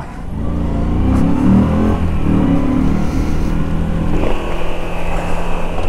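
Moto Guzzi V85 TT's air-cooled transverse V-twin pulling under acceleration: the revs climb over the first couple of seconds, then the engine runs steadily.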